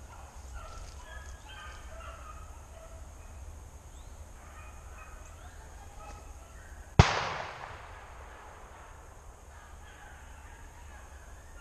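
Rabbit hounds baying faintly as they run a rabbit through the brush. About seven seconds in, a single loud shotgun shot cracks out, with a ringing tail of about a second.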